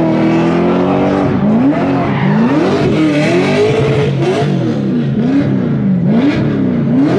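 Supercharged burnout car's engine revving hard, its pitch swinging up and down about once a second as the driver works the throttle. Under it runs the hiss of the spinning rear tyres.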